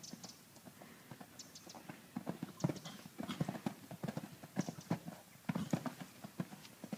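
Hoofbeats of a Connemara gelding cantering on a sand arena: a run of dull thuds and clicks, heaviest through the middle.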